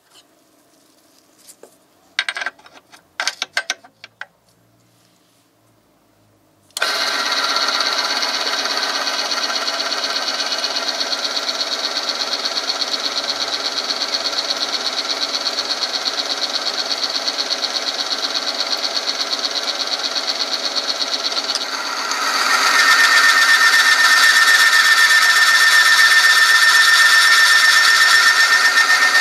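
A few clicks as the oil-film testing machine is set up, then its electric motor starts about seven seconds in and runs steadily, the roller turning against the metal test sample in oil. Past the two-thirds mark the sound grows louder and harsher with a steady high squeal, as weights on the lever arm press the sample harder against the spinning roller.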